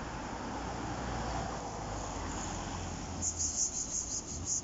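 Steady low rumble of distant road traffic, with a quick run of high, thin chirps through the last second and a half.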